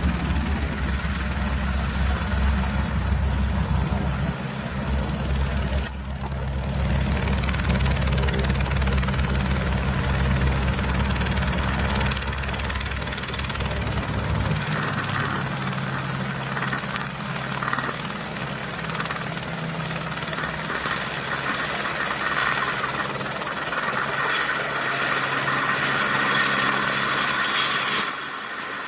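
Helibras AS 350 B2 Esquilo single-turboshaft helicopter running, a steady high turbine whine over rotor noise; the deep low part of the sound drops away about halfway through while the whine rises slightly near the end.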